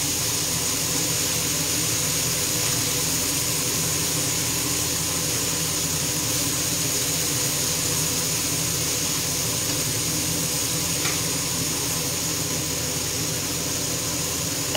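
Octopus, zucchini and cherry tomatoes frying in a pan on a gas hob: a steady sizzling hiss over a constant hum, with a short click about eleven seconds in and a sharp knock at the very end.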